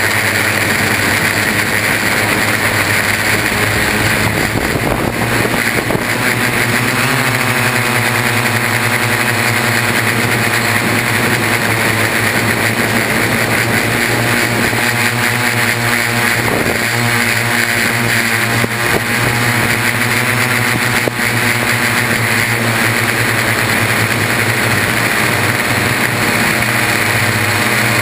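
Y6 multirotor drone's six electric motors and propellers running in flight, heard up close from a camera hardmounted to the frame: a loud steady buzz with whining tones that shift in pitch now and then as the throttle changes.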